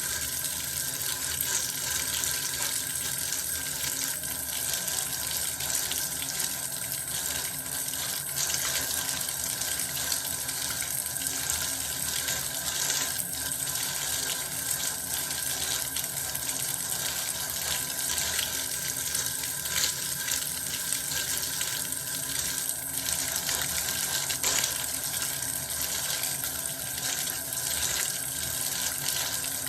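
Water running steadily from a tap into a bath, an even, unbroken rush with small splashes.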